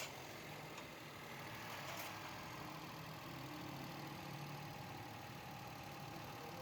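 Toyota Vitz (2012) engine idling steadily just after being started. The wiring fault behind its misfire and vibration has just been repaired.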